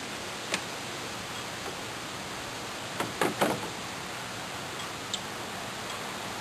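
Steady hiss with a few light taps from a cat pawing at the water of a plastic kiddie pool: one about half a second in, a quick cluster of three or four near the middle, and one more near the end.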